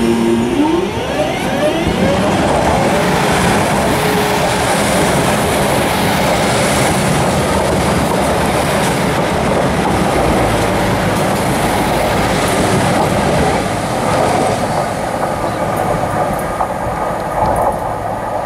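Northern multiple-unit passenger train running past close by: a steady rumble of wheels on rail with clickety-clack over the rail joints, and a faint rising whine in the first second.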